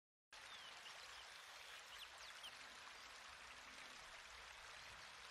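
Faint, steady splashing of water running from a spout, starting a fraction of a second in, with a few brief high bird chirps over it.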